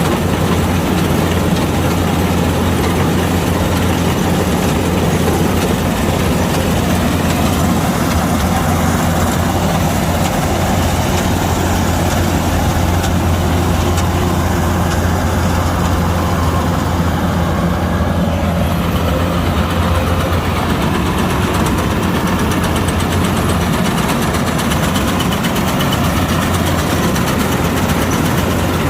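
Kubota DC-105X combine harvester running steadily while harvesting rice: a constant low engine hum with the whir of its machinery, loud and even throughout.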